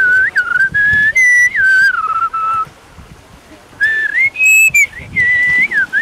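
A whistled tune: a string of held notes stepping up and down with short slides between them, breaking off for about a second in the middle before going on.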